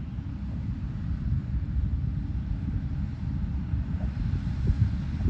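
Tractors pulling hay balers across a field, their engines and balers running as a steady low rumble that swells briefly near the end.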